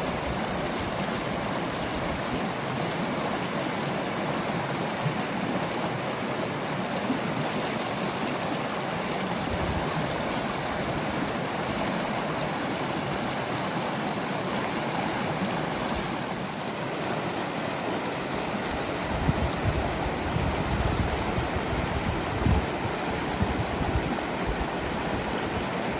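River water flowing, a steady rushing. In the last third, low gusts of wind buffet the microphone.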